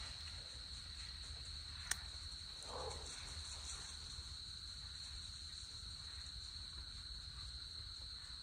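A steady, high-pitched chorus of night insects. There is a single sharp click about two seconds in and a brief faint low sound about a second later.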